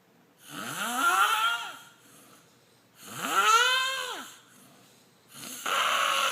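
A chicken making snore-like sounds: three breathy, pitched snores, each rising and then falling in pitch, about every two and a half seconds.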